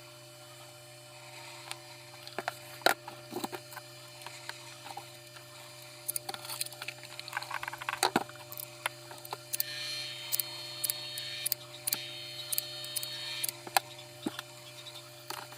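Scattered clicks and knocks of small parts and tools being handled during an electric fan repair, over a steady low hum. A high whine joins in from about ten seconds in and stops near the end.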